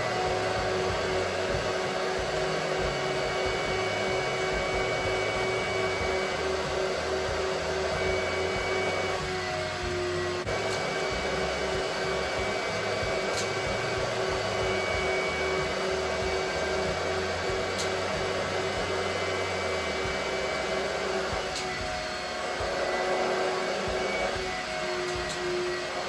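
The vacuum motor of an upholstery wet-cleaning machine whirring steadily, with a constant hum, as the couch is extracted. Background music with a bass line plays underneath.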